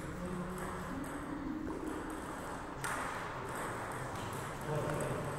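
Celluloid-type table tennis ball clicking sharply against bats and the table top in a doubles rally, a series of separate pings.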